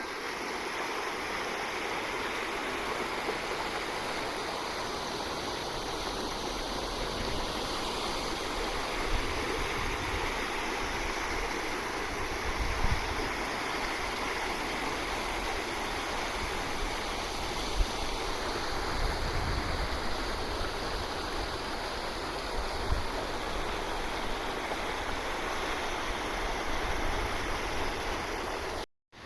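River water rushing and flowing steadily after heavy rain, with a few brief low thumps.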